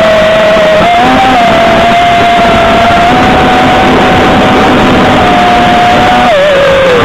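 GepRC FPV quadcopter's brushless motors and propellers whining, loud and distorted. The pitch holds steady at cruising throttle with small steps up and down, then drops near the end as the throttle comes off.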